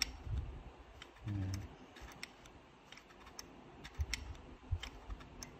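Scattered light clicks and taps of hard plastic and metal pistol parts being handled at close range, a few a second, from a disassembled airsoft Glock 17 slide and barrel.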